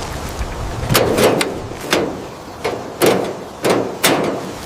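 Five separate knocks or thuds, each with a short ringing tail, over a steady background hiss.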